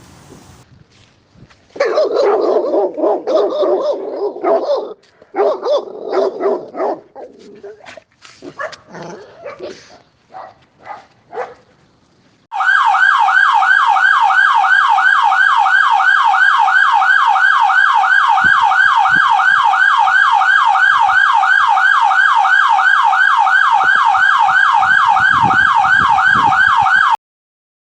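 A dog barking repeatedly, the barks growing sparser and quieter, then an emergency-vehicle siren in a fast yelp, its pitch sweeping about four times a second, which cuts off suddenly near the end.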